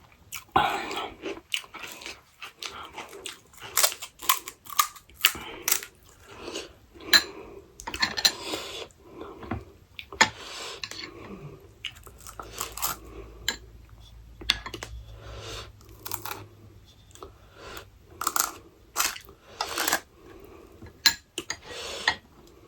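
Close-up eating of pani puri: crisp puri shells crunching between the teeth, with wet chewing in between, in many short irregular bursts.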